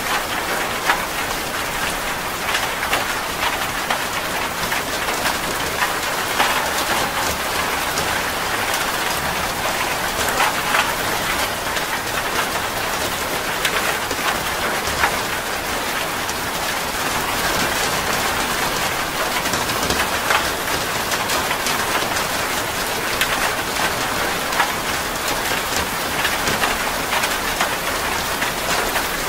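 Steady rain falling: an even hiss dotted with many sharp ticks of individual drops striking close by.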